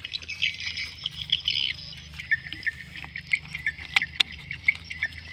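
A puppy eating and drinking from its bowls: quick wet mouth clicks and smacks, with two sharper clicks about four seconds in. Steady high chirping runs underneath.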